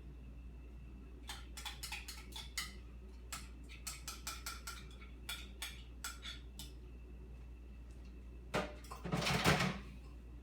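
A utensil clinking and scraping against a pan while thick custard filling is spooned out: a quick run of light clinks, then a louder clatter and scrape near the end.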